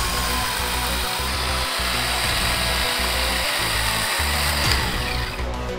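Worx Nitro battery chainsaw with brushless motor running under load, cutting through a log, with a steady whine and rasp that stops near the end. A music track with a steady beat plays underneath.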